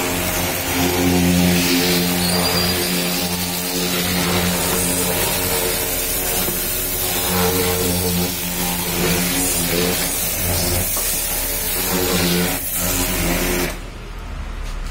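Pressure washer running: the motor-driven pump hums steadily while the water jet hisses against the wheel and tyre. Near the end the spray cuts off and the hiss drops away, leaving a low hum.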